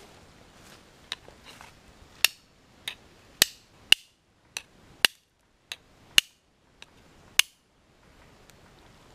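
Large jungle knife chopping minced bamboo rat meat on a bed of bamboo stems and leaves: about a dozen sharp knocks, roughly two a second, as the blade hits through the meat into the wood, stopping shortly before the end.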